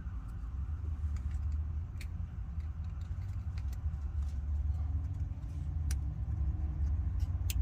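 Steady low rumble with scattered light clicks and rattles of a wiring connector being plugged in and fastened with a tie wrap.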